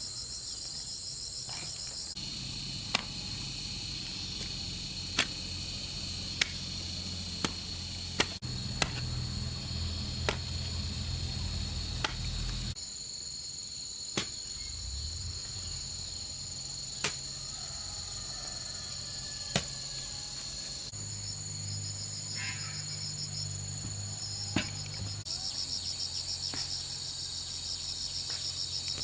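Steady chorus of crickets and other insects with a fast pulsing trill, broken by sharp single knocks every one to three seconds.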